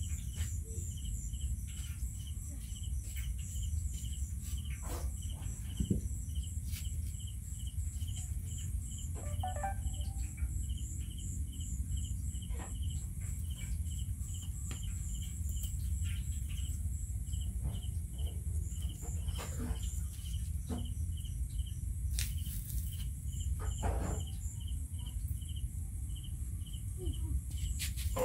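Crickets chirping in a steady, evenly spaced pulse, about two to three chirps a second, over a low rumble, with scattered faint clicks and knocks.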